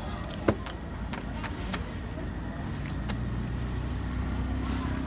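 Street ambience with a vehicle engine's steady low hum, scattered light clicks, and one sharp click about half a second in.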